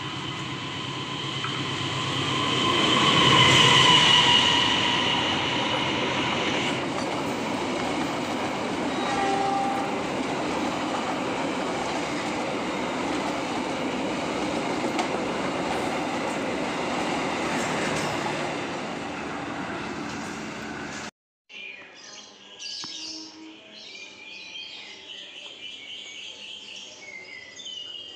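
A passenger train hauled by a CC 206 diesel-electric locomotive passes close by, a steady rumble and rush of engine and carriages. A long, steady high tone sounds over it in the first few seconds and is loudest about three to four seconds in. The train sound cuts off abruptly about 21 seconds in, leaving birds chirping faintly.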